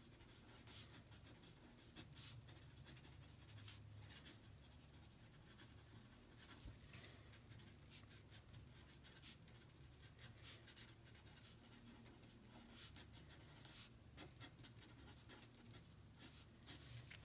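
Felt-tip pen writing on paper: faint, irregular scratchy strokes as words are written out.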